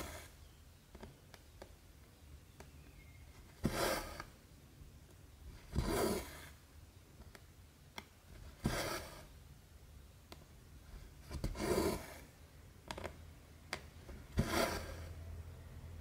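Cotton embroidery floss being pulled by hand through 14-count cross-stitch fabric: a soft rasping swish five times, about every two to three seconds, with light ticks of the needle through the cloth in between.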